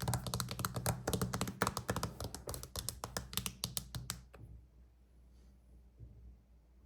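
Rapid, irregular tapping and clicking, like typing, several taps a second over a faint low hum; it stops about four seconds in, and one faint click follows near the end.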